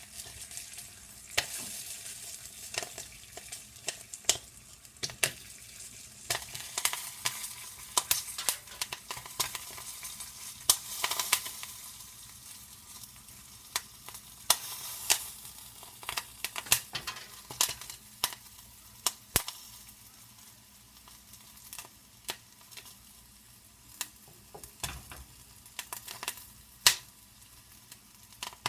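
Popcorn kernels popping in a covered pan on a stovetop: sharp, irregular pops over the sizzle of hot oil. The sizzle fades after about twelve seconds and the pops grow sparser toward the end.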